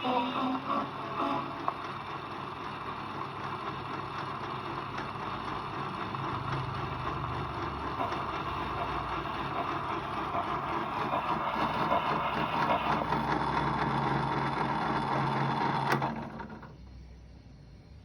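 Columbia wind-up gramophone running on after the music ends, with steady scratchy noise from the needle and mechanism that slowly gets louder. It stops with a click about sixteen seconds in.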